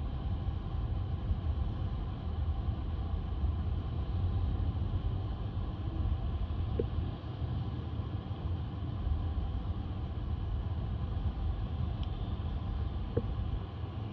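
Steady low rumble of street traffic, with two faint short clicks partway through.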